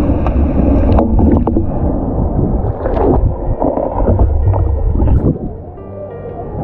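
Water sloshing and splashing as an elephant moves and plays in a pool right by the microphone, with a deep rumble of churning water and many short splashes; it quietens near the end.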